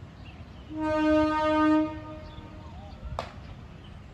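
Air horn of the KiHa 183 diesel railcar set sounding one steady blast of a little over a second. A single sharp click follows near the end.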